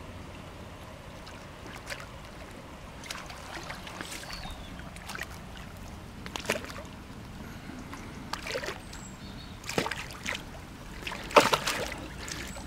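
Hooked mirror carp thrashing at the water's surface beside the landing net: a string of separate sharp splashes over a low steady background, louder and closer together near the end.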